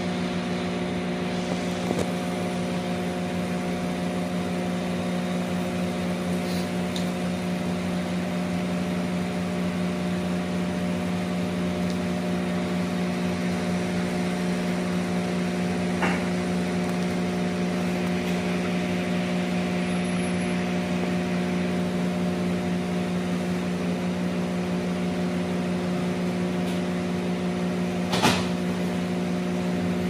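Cafelffe EM653-3C espresso machine's pump humming steadily as it pushes water through the coffee puck, pulling a double shot. There is a light click about halfway and a sharper one near the end.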